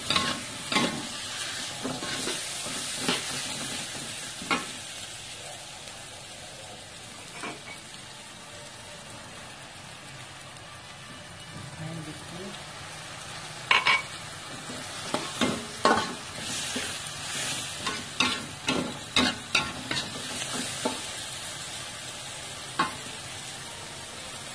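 Stir-frying in a wok: food sizzling steadily in hot oil while a metal spatula scrapes and knocks against the wok. The spatula strokes come in quick runs in the first few seconds and again from about the middle to near the end, with a calmer stretch of plain sizzling between.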